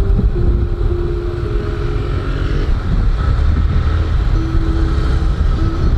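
Motorcycle riding through traffic: the engine running at a steady cruise under a heavy low rumble of wind and road noise on the camera's microphone.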